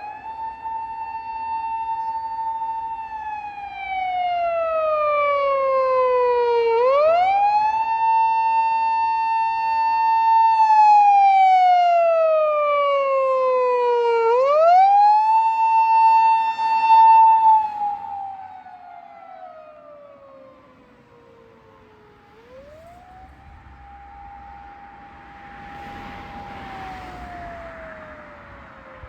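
Japanese police car's siren wailing in long slow cycles: each one rises quickly, holds a high note for a few seconds, then slides slowly down before rising again. It is loud at first and turns much quieter about two-thirds of the way through.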